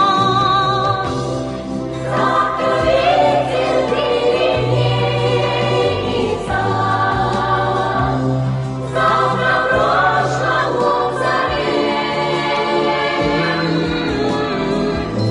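Song passage with a choir singing held notes with vibrato over instrumental backing and a bass line.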